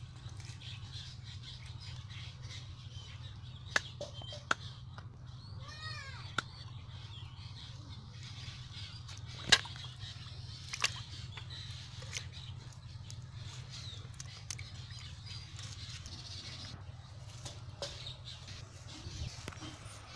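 A few sharp knocks and taps as small live fish are handled and dropped into a metal pot, the loudest about nine and a half seconds in. Under them are a steady low hum and outdoor background, with a brief run of bird chirps around six seconds in.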